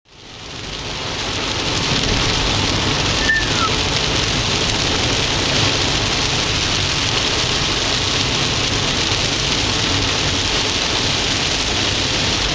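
Heavy rain pouring down in a steady, dense hiss, fading in at the start. A brief high squeak comes about three seconds in.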